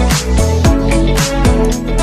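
Background music: an upbeat electronic dance track with a deep bass, sliding bass notes and a quick steady beat.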